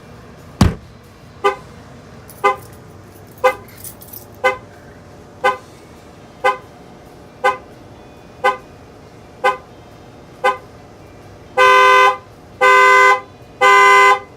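A single bang, then the 2015 Chevy Silverado's factory alarm sounding through its horn: short toots about once a second, then near the end longer honks, about one a second. The shock sensor added to the factory alarm has picked up the knock and tripped it.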